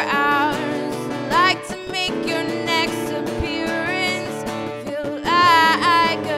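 A band playing a pop-rock song with strummed guitar and sung vocals. The voice holds notes that slide up and down, swelling loudest about a second and a half in and again near the end.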